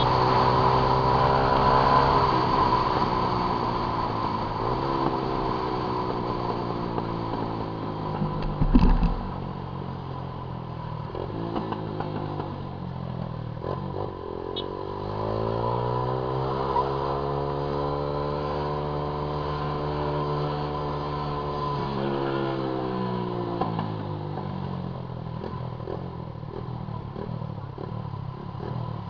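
Honda CG Titan 150 single-cylinder four-stroke engine running through a loud 'viúva-negra' aftermarket exhaust while being ridden. Its pitch rises and falls as it accelerates and eases off, with one long climb and drop about halfway through. There is a loud thump about nine seconds in.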